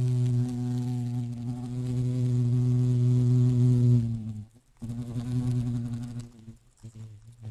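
Hoverfly wings buzzing in hovering flight: a steady low buzz that cuts out for a moment about four seconds in, resumes, then comes in short stops and starts near the end.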